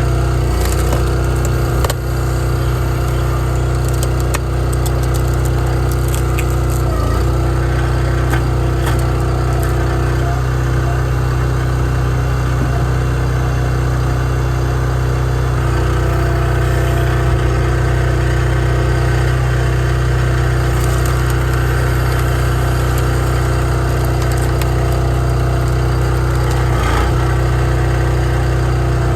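Gas engine of a Wolfe Ridge firewood splitter running steadily at high speed, with a brief dip about seven seconds in and again near the end.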